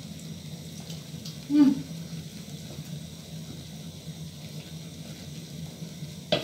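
Thick millet porridge boiling in an aluminium pot, bubbling steadily, with one loud low blop about a second and a half in. A wooden spoon stirs it, with a sharp click near the end.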